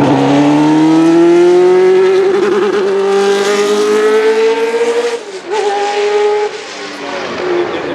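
Cosworth DFV 3.0 V8 of a 1982 Arrows A4 F1 car accelerating hard, its pitch rising steadily for about five seconds. The note breaks sharply about five seconds in, then runs on steadier and quieter.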